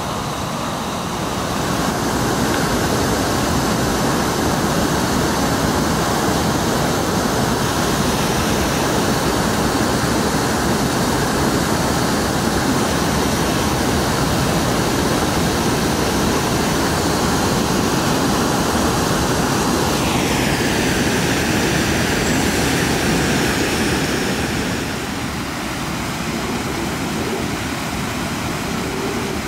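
Water rushing over a low river waterfall: a steady, loud roar of white water that eases a little near the end. A higher whine falls in pitch about twenty seconds in.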